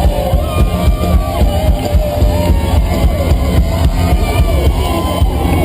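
A live country-rock band playing loudly through a concert PA, with electric guitar and a drum kit keeping a steady beat.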